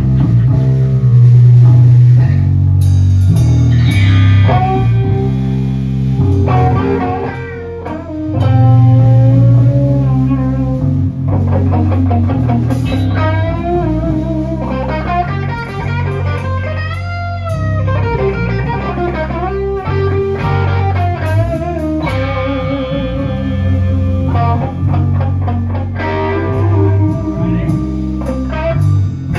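Loud live band playing: electric guitar and electric bass riffing over a drum kit, the bass moving in steps between low notes.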